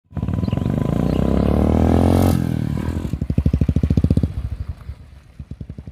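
Royal Enfield motorcycle's single-cylinder engine through a Peashooter exhaust with no dB killer, revved high, then dropping off about two seconds in to a loud, even thump of separate exhaust beats that fades near the end.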